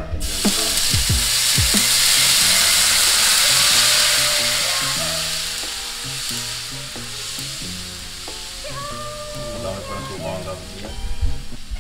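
Vinegar being poured into a hot wok sizzles: a loud hiss that starts suddenly as the liquid hits the hot metal, then eases after about five seconds into a quieter, steady sizzle as the pan cools under the liquid.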